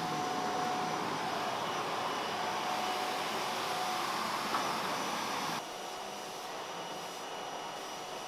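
Canister vacuum cleaner running with a steady hiss of suction and a motor whine. About five and a half seconds in, it drops suddenly to a quieter steady noise.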